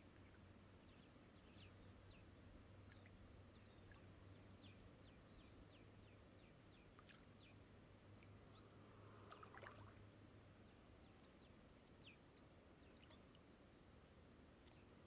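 Near silence: faint outdoor ambience with a low steady hum and scattered faint short high chirps, with a slightly louder brief sound about two-thirds of the way through.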